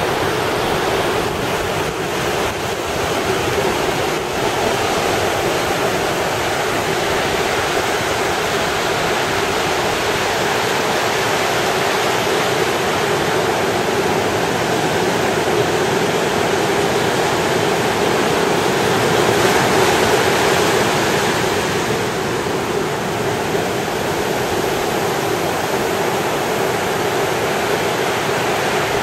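Ocean surf washing onto a beach, a continuous rushing wash of breaking waves that swells a little louder about two-thirds of the way through.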